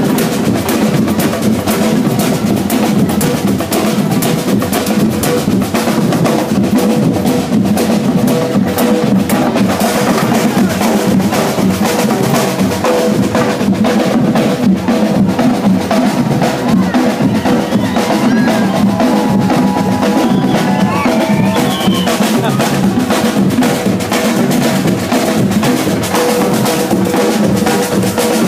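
Drum band playing loud, continuous drumming on snare and bass drums.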